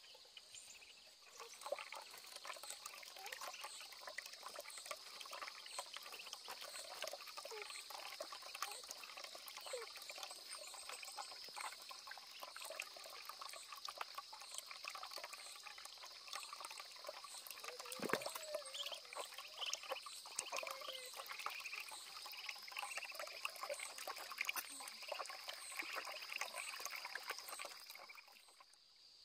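Water pouring and splashing steadily, starting about a second and a half in and stopping near the end, with insects chirping steadily in the background.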